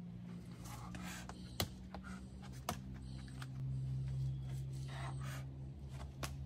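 Climbing shoes and hands on rock: a few sharp taps and scuffs as the climber places his feet and moves on the boulder, over a steady low hum.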